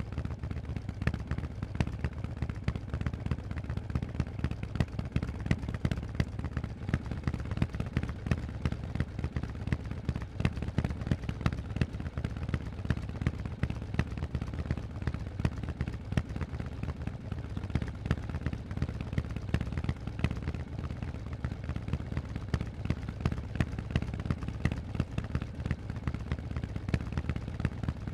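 Harley-Davidson Forty-Eight's air-cooled 1200 cc V-twin running through Vance & Hines exhausts: a steady, fast stream of sharp exhaust pulses, mostly low in pitch.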